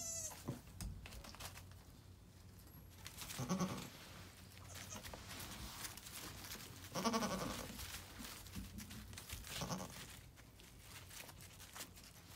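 Nigerian Dwarf goats bleating three times, short calls about three seconds apart, the middle one the loudest. Light rustling and crunching of the wood-shaving bedding comes between the calls.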